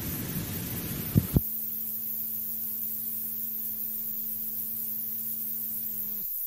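Hiss with two sharp clicks a little over a second in, then a steady electrical mains hum that cuts off abruptly near the end.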